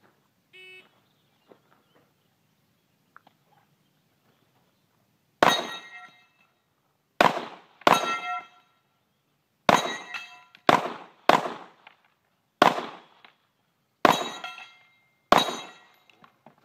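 Shot-timer start beep, then, after about five seconds, nine rifle shots at an uneven, deliberate pace. Several shots are followed by the ring of struck steel targets.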